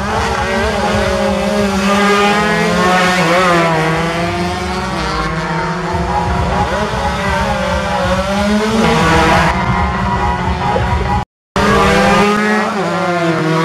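Several two-stroke underbone racing motorcycles cornering and passing, their engines revving up and down over one another. The sound cuts out briefly about eleven seconds in.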